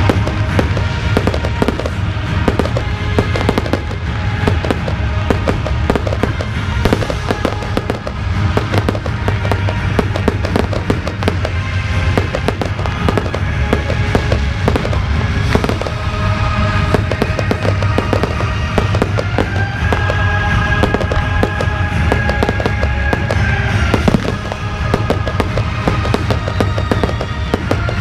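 Fireworks display: a dense, continuous run of rapid bangs and crackles, many a second, over music with sustained notes.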